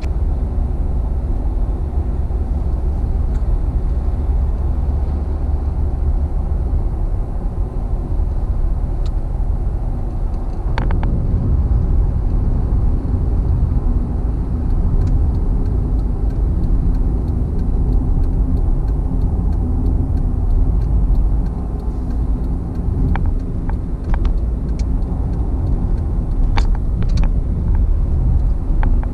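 Steady low road and engine rumble of a car cruising on a highway, heard from inside the cabin, with a few faint clicks.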